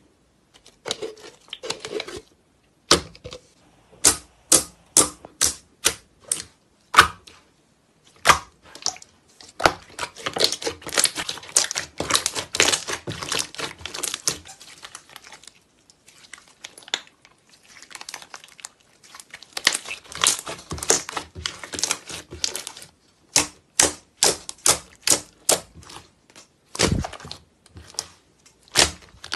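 White slime squeezed, poked and stretched by hand, giving a series of sharp clicking pops, some in quick runs, with two longer stretches of dense crackling.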